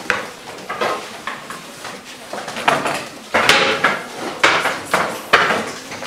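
Wooden classroom desk lids knocking and books and papers being shuffled and rustled: a run of irregular clattering knocks and rustles, busier in the second half.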